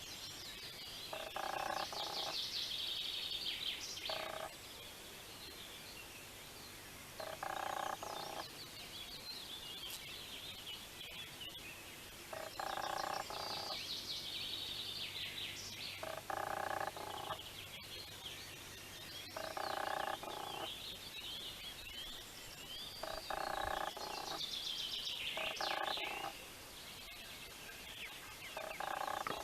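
Frogs croaking, a call about a second long repeating every few seconds, over a steady high-pitched chirping and trilling.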